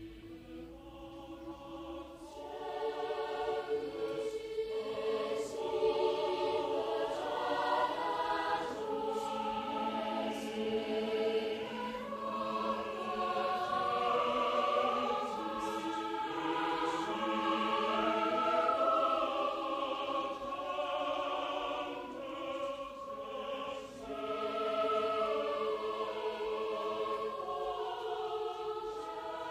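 Choir singing a slow piece in several parts, with long held notes, coming in about two seconds in.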